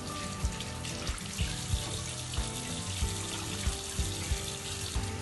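Water running from a tap while hands are washed, under background music with a steady beat.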